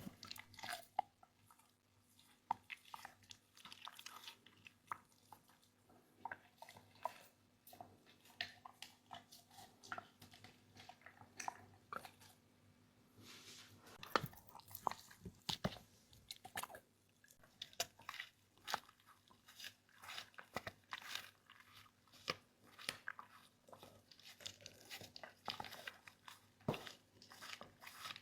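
A dog chewing something hard and crunchy, with many sharp, irregular crunching bites.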